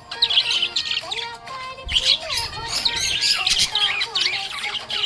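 Budgerigar chattering in a fast, continuous run of high chirps and squawky warbles, with music underneath.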